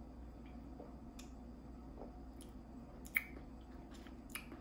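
Quiet sips and swallows of orange juice from a glass, with a few faint wet clicks, the sharpest about three seconds in.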